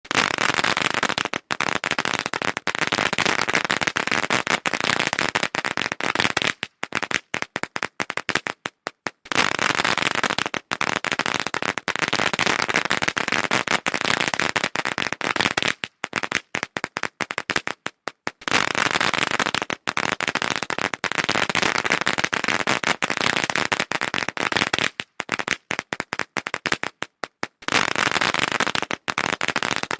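A string of firecrackers going off in a rapid, dense crackle of small bangs. Each run thins out to a few scattered pops and then starts again, about every nine seconds, three times over.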